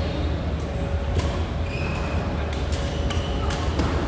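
Badminton rally: sharp pops of rackets striking a shuttlecock several times in quick succession, over a steady low rumble.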